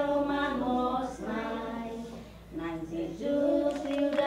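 A group of young children and women singing together unaccompanied in long held notes, with a short break about two seconds in.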